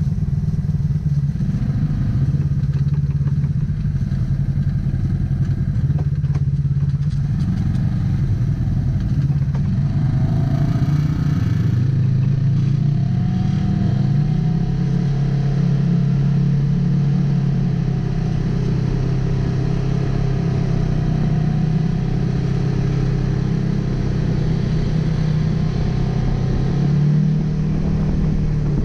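Polaris RZR 1000 XP side-by-side's engine running steadily as the machine is driven, its pitch shifting up and down with the throttle.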